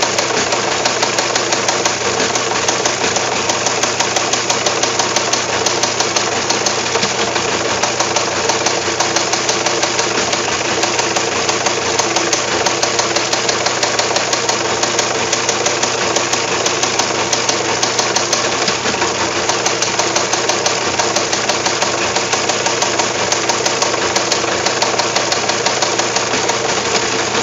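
Teletype Model 15 teleprinter printing continuously: a fast, steady clatter of typebars striking the paper, over a steady hum.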